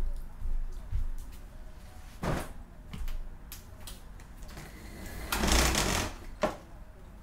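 Armful of laundry rustling as it is carried and set down on a wooden floor, with scattered knocks and footfalls; the longest, loudest rustle comes a little after halfway, followed by a sharp click.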